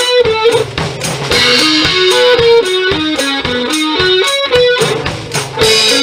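Electric guitar and drum kit playing an instrumental tune live. The guitar picks a single-note melody that steps up and down over a steady drum beat.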